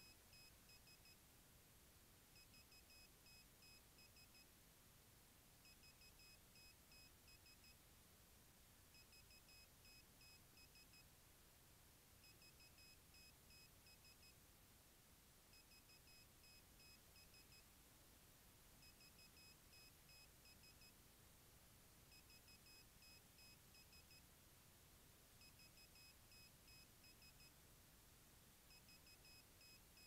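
Faint electronic beeping: a run of quick high pips lasting about a second, repeating every three seconds or so over a faint steady hiss.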